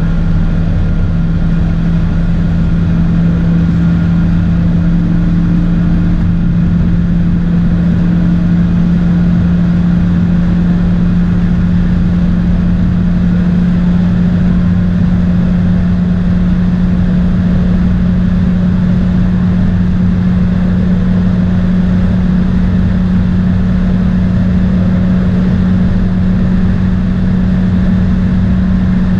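VW Golf Mk2's 2.0-litre 16-valve ABF four-cylinder engine at high revs as the car keeps accelerating at about 190 to 210 km/h, heard from inside the cabin. The engine drones steadily, its pitch creeping slowly upward, over a constant rush of road and wind noise.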